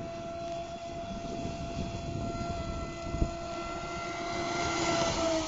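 Electric motor of a Cyber Storm 33 mono-hull RC boat, running on a 4S LiPo pack, giving a steady high whine at speed; the pitch dips slightly near the end.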